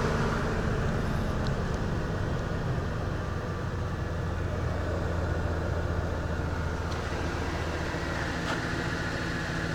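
2005 Ford E-350's 5.4 L Triton two-valve V8 idling steadily, just after a hard cold start.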